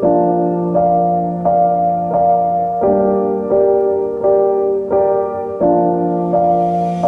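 Background music: piano or electric-piano chords struck in a steady rhythm, about one chord every 0.7 seconds.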